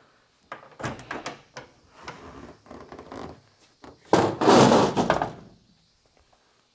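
Trophy truck body panels being handled and pulled off by hand: a run of light knocks and clunks, then about four seconds in a louder clatter lasting about a second as a front fender is set down on the floor.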